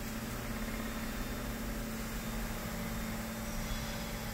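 Kia Bongo tow truck's engine idling: a steady hum with a low steady tone, heard from inside the cab.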